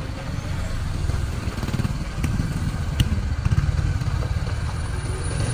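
A vehicle's engine running on the move, with two short sharp knocks, a little over two and about three seconds in.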